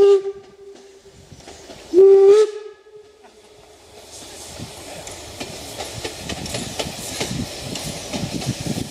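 Harz narrow-gauge steam locomotive sounding its steam whistle: the tail of a long blast, then a short blast about two seconds in that rises in pitch as it starts. From about four seconds the train's running noise, with the locomotive's exhaust and wheels on the rails, grows steadily louder as it approaches the level crossing.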